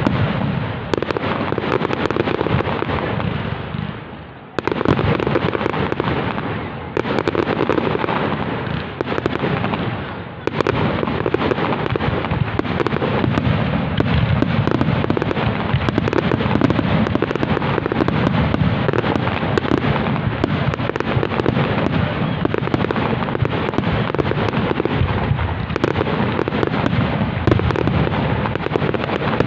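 Fireworks display: a dense, rapid run of bangs and crackling, with two short lulls about four and ten seconds in, then nonstop from there on.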